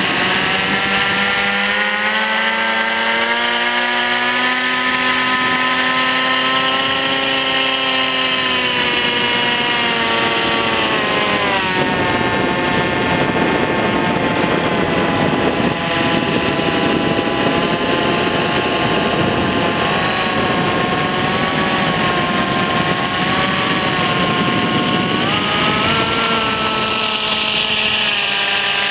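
Propeller motors of a remote-control blimp, running close to the on-board camera's microphone. Their pitch rises over the first few seconds, drops about ten to twelve seconds in, then holds with small wavers under a rushing noise.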